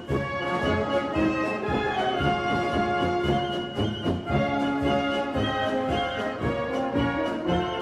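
Orchestral background music led by brass, with sustained notes over a steady beat.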